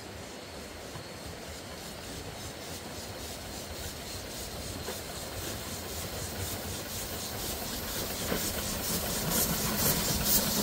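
Small 15-inch-gauge steam locomotive running toward the listener, getting steadily louder, with a rapid regular beat growing clearer toward the end.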